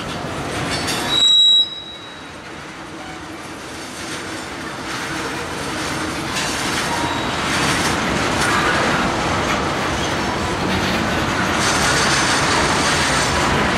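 Railroad tank cars of a freight train rolling past, their steel wheels rumbling and clattering over the rails, growing louder. A brief high-pitched squeal about a second in is the loudest moment.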